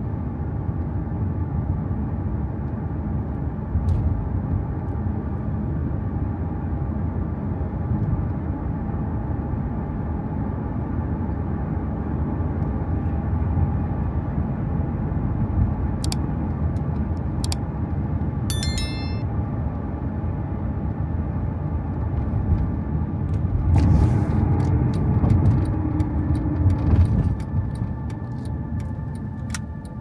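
Steady low rumble of a moving vehicle's road noise, swelling a little about three-quarters of the way through. A few sharp high clicks come near the middle, and a run of light ticks in the last few seconds.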